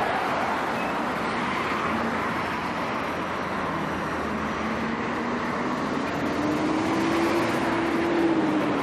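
Road traffic: a steady rush of vehicle and tyre noise. From about two seconds in, one engine's hum rises slowly in pitch and grows a little louder toward the end.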